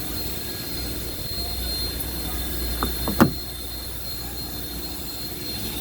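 Steady low rumble of a car, with a couple of quick falling squeaks and a sharp click about three seconds in.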